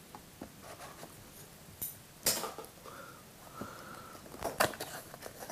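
A small cardboard box being handled and opened by hand: scattered light scrapes and taps, with a sharper, louder rustle about two seconds in and a couple of clicks near the end.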